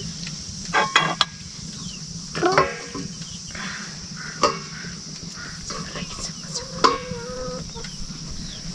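Metal ladle stirring and scraping in a large aluminium cooking pot, with a few sharp, ringing metal clinks against the pot and a steel plate.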